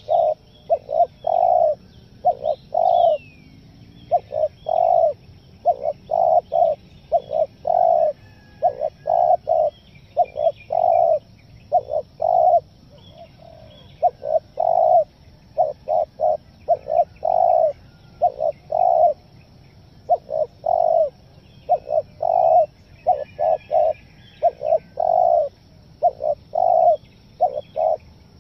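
Spotted dove cooing in repeated phrases of short and longer notes, broken by stuttering pauses. Small birds chirp faintly in the background.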